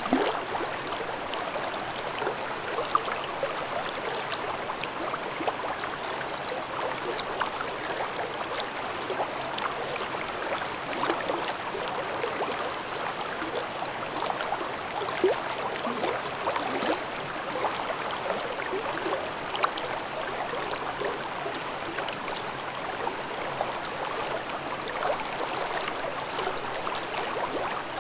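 Mountain stream babbling over rocks: steady rushing and gurgling water with frequent small splashes.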